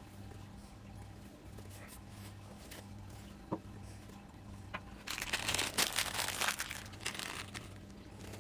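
A single light knock about three and a half seconds in, then about two seconds of crinkling and rustling as wrapping or packaging is handled on the workbench, over a faint steady hum.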